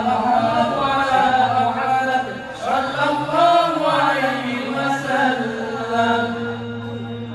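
Several male voices chanting a sholawat melody together through microphones, long drawn-out phrases rising and falling in pitch, with no drumming.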